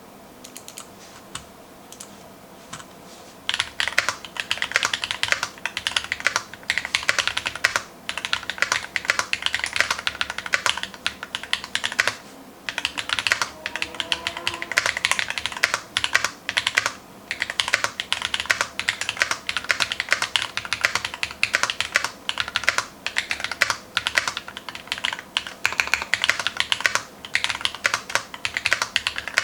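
Fast, continuous typing on a custom mechanical keyboard with lubed Glorious Holy Panda tactile switches, foam-dampened case and GMK keycaps. A couple of single keystrokes come first, then rapid typing begins about three and a half seconds in, with brief pauses twice along the way.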